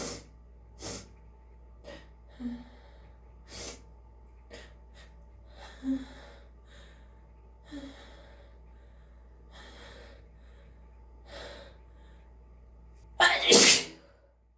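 A person's sneeze, loud and in two quick parts, about 13 seconds in. Before it come a dozen short, quiet breaths and gasps, the intake building up to the sneeze.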